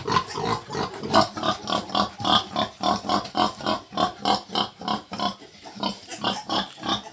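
Pietrain gilt in heat grunting rapidly and steadily, about three short grunts a second.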